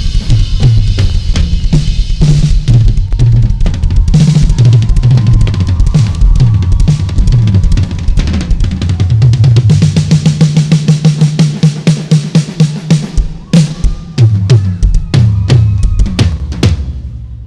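Drum kit solo with fast kick, snare and tom patterns. About ten seconds in it breaks into a rapid roll lasting a couple of seconds, then a run of spaced, accented hits with cymbals ends it just before the close.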